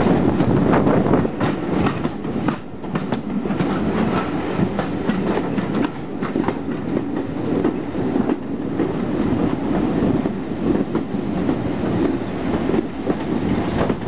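Steam-hauled heritage passenger train running, heard from an open carriage window: a steady rumble from the coaches with the wheels clicking irregularly over the rail joints.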